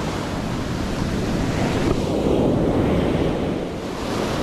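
Rough surf breaking and washing up the beach in a continuous rush, with wind buffeting the microphone.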